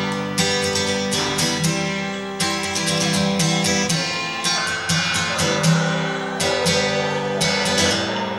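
Background music: acoustic guitar, strummed and plucked in a steady rhythm.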